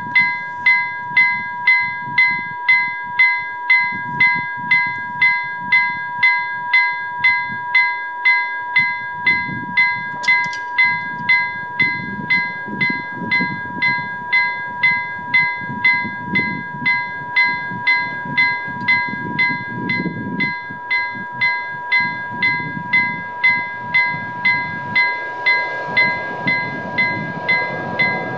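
Level crossing warning bell ringing at about two strikes a second, with a steady tone under it. Near the end the noise of an approaching train rises beneath the bell.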